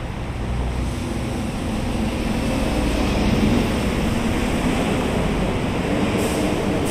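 A motor's hum over a steady rush of noise, growing louder over the first three seconds and then holding.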